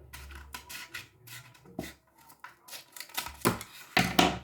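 A small plastic packet being handled and opened: rustling and crinkling with a series of short sharp snips and clicks, loudest near the end.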